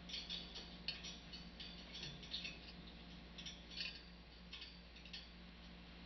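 African grey parrot working a plastic ball with its beak on top of its cage: irregular bursts of scratchy clicking and rattling, several in the first five seconds.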